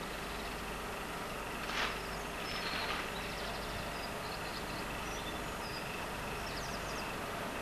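Steady outdoor background noise with faint, high bird chirps scattered through it, and a brief louder noise about two seconds in.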